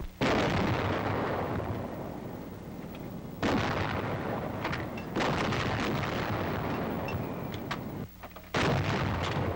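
90mm anti-aircraft guns firing: four heavy blasts a few seconds apart, each with a long fading tail.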